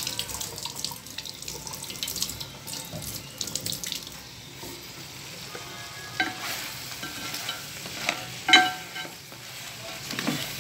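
A creamy butter sauce with crabs bubbling and sizzling in a pot on a gas stove: a steady crackle of small pops. A single sharp knock about eight and a half seconds in.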